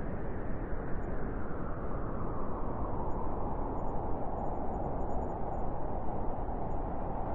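Wind blowing in a steady rush, its pitch sinking slightly and then rising again as it swells.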